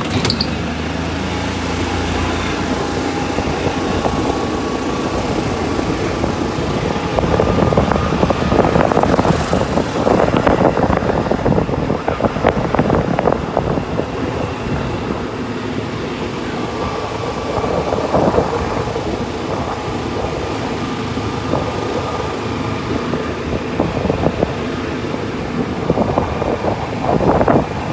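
Steady running noise of a vehicle driving along a paved road, motor, tyres and passing air blended together, growing louder for a few seconds about eight seconds in and again near the end.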